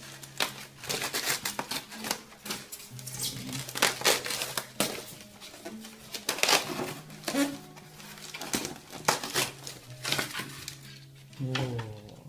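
Styrofoam packaging being handled and pried open: a run of irregular rubbing and squeaking scrapes of foam against foam, with some crinkling.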